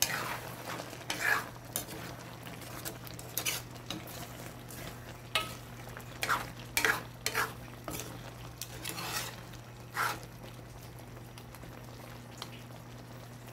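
Metal spatula and ladle stirring and scraping through a thick simmering stew in a wok, in irregular strokes that die away after about ten seconds, over a steady low hum.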